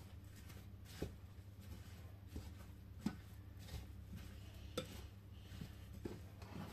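Wooden spoon stirring a stiff, crumbly apple cake batter in a ceramic mixing bowl, with quiet scraping and irregular soft knocks of the spoon against the bowl about once a second.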